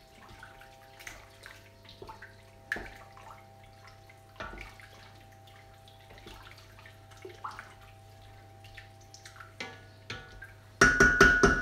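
Wooden spoon stirring rice through seafood stock in a stainless steel pot, with faint sloshing and light knocks of the spoon against the pot over a steady hum. Near the end, a sudden run of loud, ringing knocks as the spoon strikes the steel pot.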